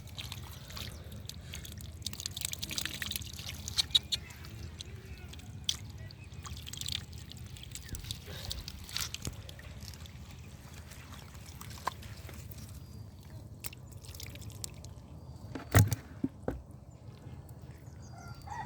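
Small wet splashes, drips and squelches of hands working through mud and shallow water, with one sharp splash about sixteen seconds in.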